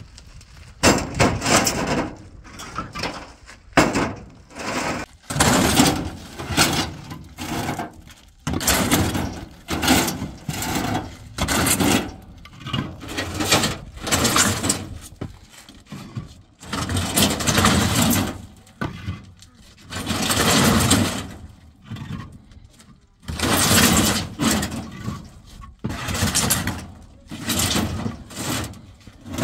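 Hollow concrete blocks being handled off a pickup truck bed: repeated scraping and clunking of block against block and against the truck's metal bed, one every second or two.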